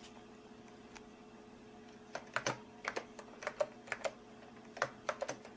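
Computer keyboard keys pressed one at a time, typed one-handed while guessing a login password: after about two seconds of quiet, an uneven run of roughly a dozen sharp key clicks. A faint steady hum runs underneath.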